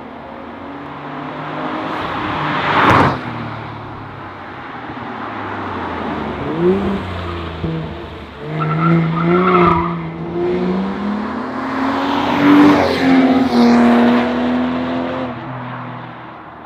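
BMW 840i's turbocharged 3.0-litre inline-six through an ARMYTRIX valved turbo-back exhaust, revving and accelerating with its pitch rising and falling several times. There is a sharp, loud crack about three seconds in, and a run of revving surges in the second half.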